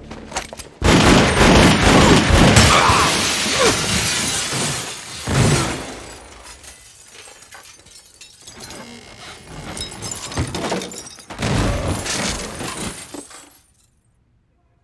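Action-film gunfight effects: gunfire and shattering glass in several loud, dense stretches, cutting off into near silence shortly before the end.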